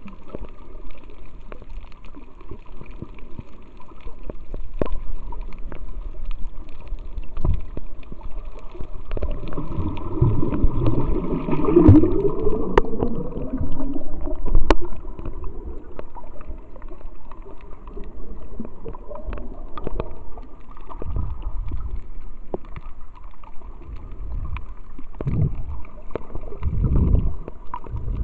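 Muffled underwater water noise, gurgling and sloshing with scattered sharp clicks. About halfway through, a louder burst of air bubbles rushes past, and a few low surges of water come near the end.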